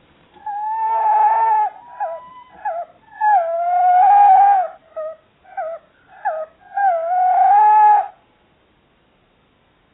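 Tawny owls calling to each other: three long, slightly wavering notes of about a second each, with short falling notes between them. The calling stops about two seconds before the end.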